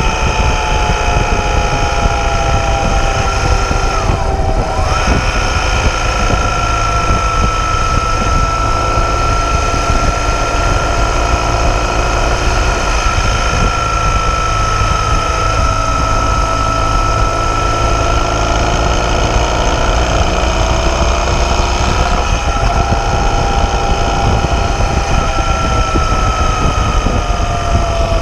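BMW R 1200 GS boxer-twin engine running at road speed, with heavy wind rumble on the microphone. The engine's pitch dips and recovers briefly about four seconds in and again near the end.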